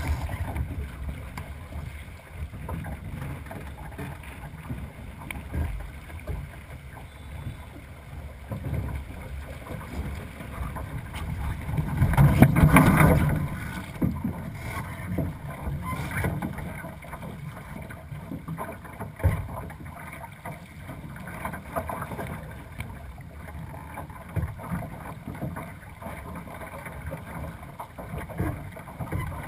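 Wind buffeting the microphone and water rushing along the hull of a two-person sailing dinghy under way, rising and falling unevenly. A louder rush comes about twelve seconds in and lasts a second or two.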